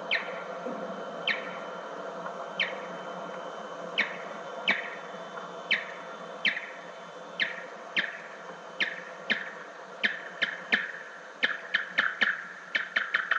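Big brown bat echolocation calls played back slowed down sixteen times, each one a short falling chirp over steady tape hiss. The calls come about a second apart at first and speed up steadily to several a second by the end, as the bat closes in on the obstacles it is flying through.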